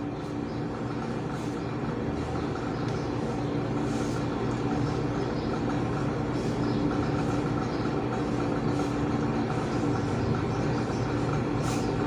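Bread dough being kneaded by hand on a floured tile surface: soft dull pushes and slaps at a steady pace, under a steady machine-like hum that carries a couple of low tones.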